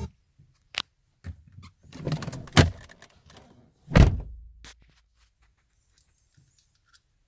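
A sharp click, a stretch of rattling and knocking, then two heavy thumps, the second about four seconds in with a short low hum after it.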